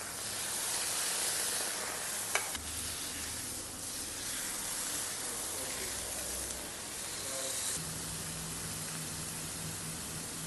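Food sizzling in a hot pan on the stove, with stirring, and a single sharp click about two seconds in.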